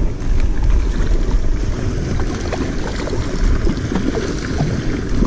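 Steady low rumble of wind on the microphone over flowing creek water, with a few faint clicks.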